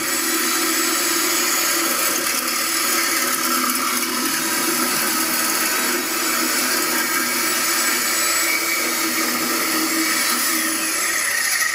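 Handheld corded electric power tool running steadily at one constant speed, its motor noise unbroken, with no cutting or impact strokes heard.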